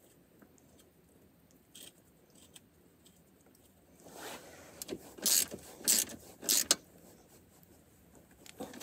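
Hand-tool work: faint clicks of metal parts being handled, then a quick run of short rasping strokes, the three loudest coming about half a second apart.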